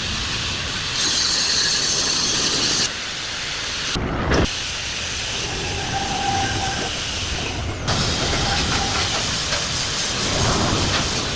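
Steady hissing noise of metalworking on steel tube, broken by abrupt changes about four and eight seconds in.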